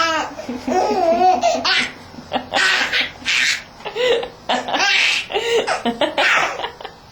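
Baby laughing in repeated bursts, with short pauses between them.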